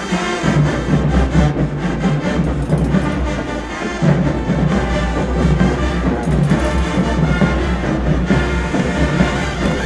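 High school marching band playing: brass over drums, with long held low bass notes underneath.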